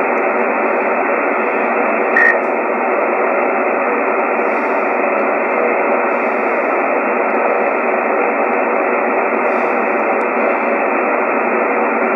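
Icom IC-736 HF transceiver's receiver giving steady static hiss through its speaker as the VFO is tuned across the 10-metre band with no station coming in. A short tone blips through about two seconds in.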